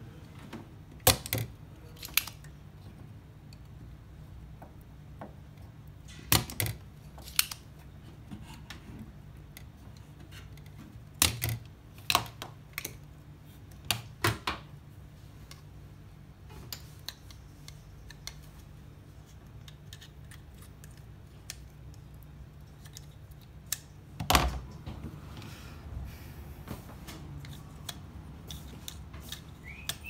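Sharp clicks of a spring-loaded desoldering pump firing and being cocked, a few seconds apart, as solder is sucked off a relay's pins on a microwave control board. A duller knock comes about 24 seconds in, over a low steady hum.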